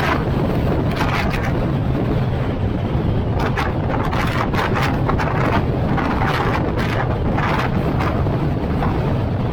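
Wind buffeting the microphone in irregular gusts over the steady low rumble of a car driving along the road.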